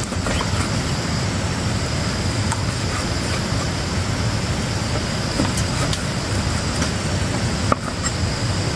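Cleaver slicing raw pork on a wooden chopping block, with a few faint taps of the blade on the board, under a loud, steady rushing noise.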